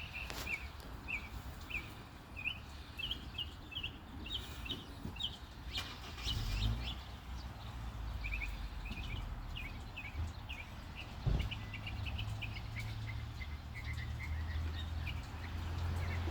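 A small male songbird singing: two bouts of quick, evenly repeated short chirping notes, high in pitch. A low rumble runs underneath from about six seconds in, with a single thump near the middle.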